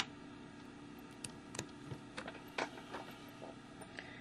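Scattered faint clicks and taps of small plastic parts being handled as the EL wire's connector is plugged into its inverter, over a faint steady hum.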